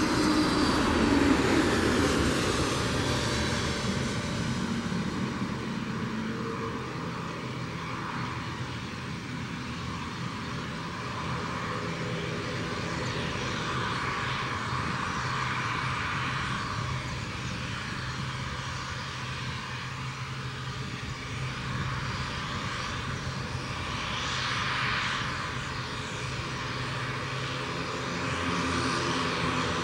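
Airliner jet engines running at taxi power: a steady whine and rumble, with a higher whine that falls in pitch over the first few seconds and gentle swells later on.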